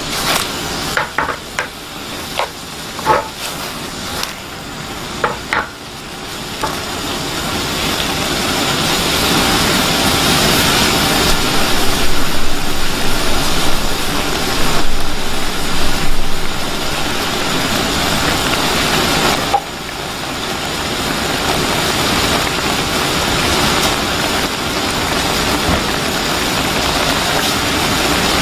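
Fig chutney cooking in a pan: a utensil clicks against the pan several times. Then a steady sizzling hiss builds up about six seconds in and keeps going.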